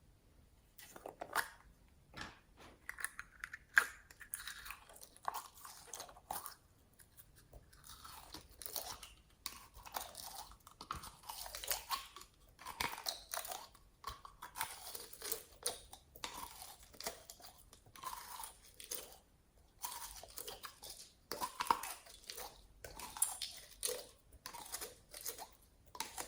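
Slime being squished and mixed, making irregular crackling, crunchy sounds that start about a second in.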